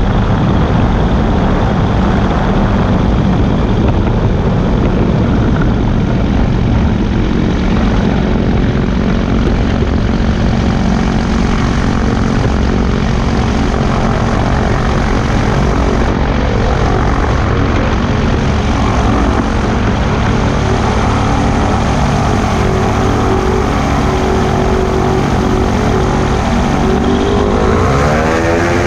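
Weight-shift trike's engine and pusher propeller running steadily under heavy wind rush. Near the end the engine revs up, its pitch rising.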